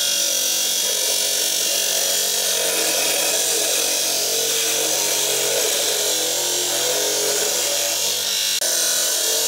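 Vulcanite abrasive cutting wheel grinding steadily through a forged steel knife blank, a continuous loud hiss over the hum of the machine's motor.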